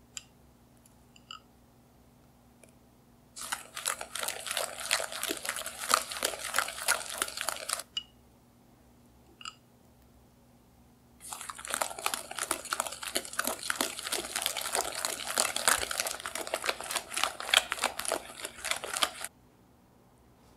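Wire whisk beating creamed butter and sugar with beaten egg in a glass bowl: a fast clatter of the wires scraping and tapping against the glass, in two long spells, the second nearly twice as long as the first. A couple of faint clinks come in the pauses between them.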